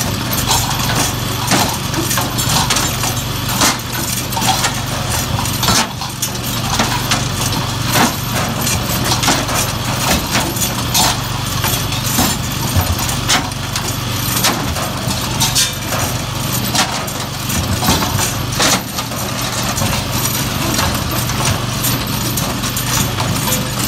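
A homemade noise machine of wooden beams and chains, driven by a small engine. The engine runs steadily underneath while the machine's wooden arms knock and clatter irregularly, with sharp wooden hits every fraction of a second.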